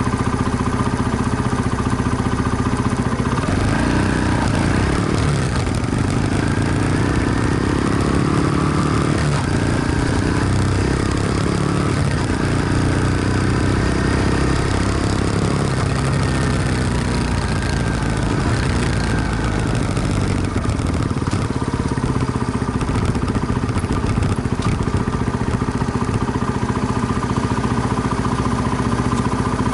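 Honda Magna 50's small single-cylinder engine running: idling steadily at first, its pitch then rising and falling through the middle stretch as it rides off, settling back to a steady run near the end.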